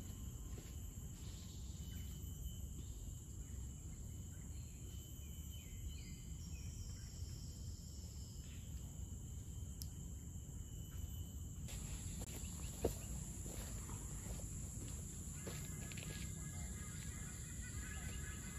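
Tropical forest ambience: a steady high-pitched insect drone over a low background rumble, with one sharp tick about two-thirds of the way through.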